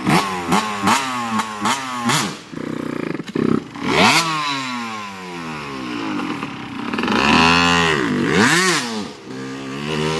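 Suzuki RM85's 85cc single-cylinder two-stroke engine revving hard: about half a dozen quick throttle blips, then a few longer revs that climb and drop off again as the rider takes it to high RPM to try to lift the front wheel.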